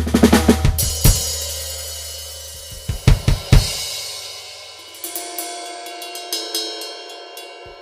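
Live-sampled acoustic drum kit played back in Kontakt: a quick run of drum hits into a cymbal crash that rings and slowly fades. A few loud drum hits come about three seconds in, then a second cymbal crash about five seconds in with lighter hits over its ring.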